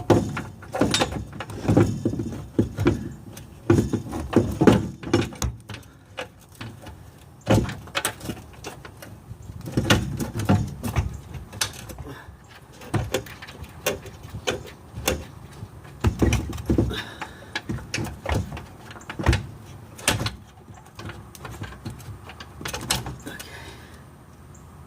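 Irregular metallic clunks, taps and scrapes as a steering box is held in place against the frame and its mounting bolts are started by hand, some knocks coming in quick clusters.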